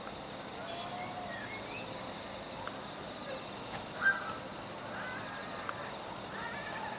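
Steady high-pitched chirring of night insects, with scattered faint short calls and one brief, louder sharp sound about four seconds in.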